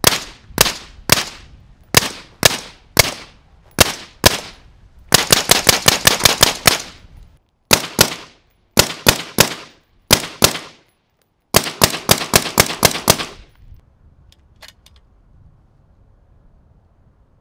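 Rifle shots through an Otter Creek Labs Infinity 7.62 suppressor, each with a short echo. Single shots come about half a second apart, then fast strings of shots, and the shooting stops a little past three-quarters of the way through, leaving only a few faint clicks.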